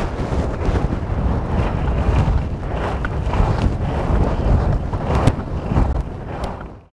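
Wind buffeting the microphone on an open ski slope, a loud, rough low rumble, with two sharp clicks near the end before it fades out.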